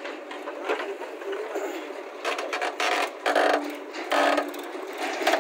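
JCB 3DX backhoe loader's engine and hydraulics working as the rear bucket digs into soil, with a few louder surges in the second half.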